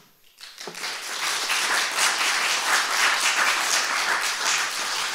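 Audience applauding, starting about half a second in and quickly swelling to steady clapping.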